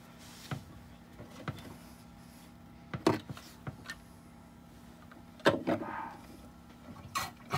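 Scattered knocks and clicks of a boat's plastic log through-hull fitting and its blanking plug being handled, over a faint steady hum. The loudest knock comes a little past halfway, and a quick run of clicks comes near the end.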